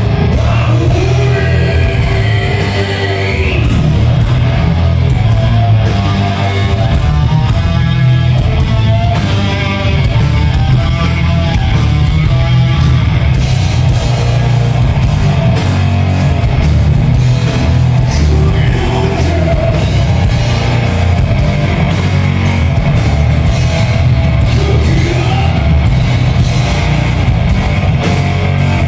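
Stoner/doom rock band playing live through Marshall amps: loud distorted electric guitar, bass guitar and drum kit, heaviest in the low end.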